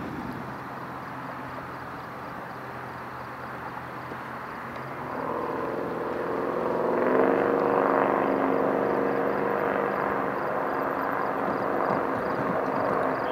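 An engine running with a steady drone, growing louder about five seconds in and rising slightly in pitch around seven seconds, then holding steady.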